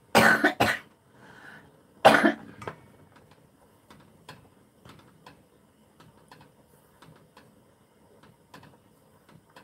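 A person coughs: two quick coughs at the start, then another about two seconds in. Faint scattered clicks follow from a wooden spatula stirring thick porridge in a stainless-steel pot.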